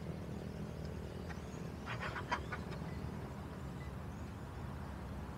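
Steady low outdoor rumble, with a quick run of a few sharp clicks about two seconds in.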